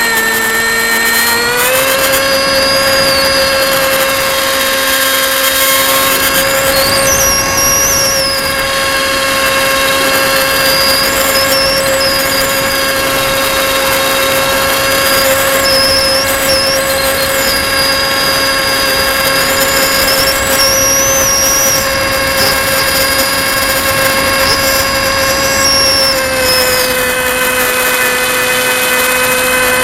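HobbyKing Bixler 1.1's 1900 kV brushless outrunner motor and pusher propeller running under power, a steady whine heard from the onboard camera with wind rushing past. The pitch steps up about two seconds in and eases down slightly a few seconds before the end.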